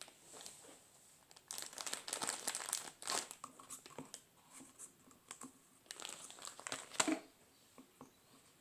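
Crinkling and rustling as cotton cosmetic pads are handled in a small container, in two spells, with a sharp click about seven seconds in.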